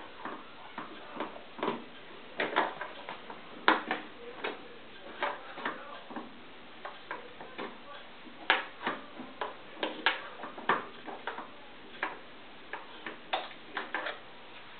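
Colored pencil tip tapping and clicking against a TV's bare power switch where the button has broken off, in irregular sharp clicks with pauses, as it hunts for the right spot to switch the set on.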